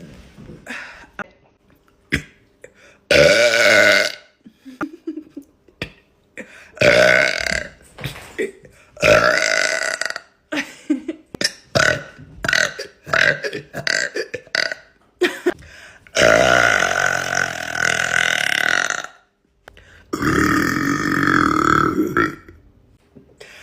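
A woman burping loudly over and over: about half a dozen burps, several drawn out for a second or more, the longest about three seconds, with a run of short, choppy ones in between.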